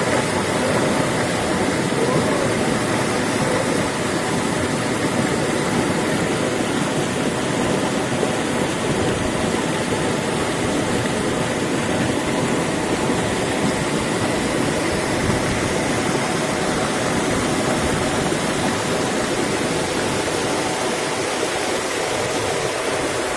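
Fast mountain river rushing and splashing over rocks in white-water rapids, a steady loud rush close to the microphone. It grows slightly quieter and thinner near the end.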